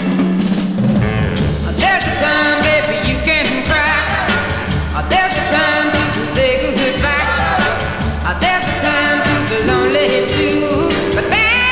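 Loud music with a singing voice over a steady bass line.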